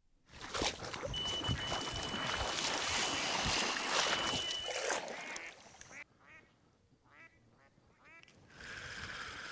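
Legs wading fast through shallow lake water, loud splashing, with a steady high electronic tone from a carp bite alarm sounding a run over it. Then several short descending calls and, near the end, a brief hiss.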